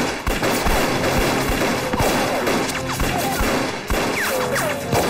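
Film gunfight sound effects: rapid, repeated gunfire and bullet impacts, with a music score underneath.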